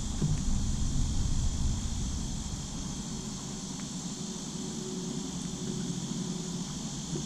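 Steady high insect buzz over a low rumble that is louder for the first three seconds, then drops away.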